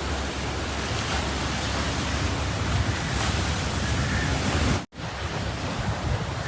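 Sea surf and wind on the microphone, a steady rushing noise, cut off abruptly for a split second just under five seconds in before it resumes.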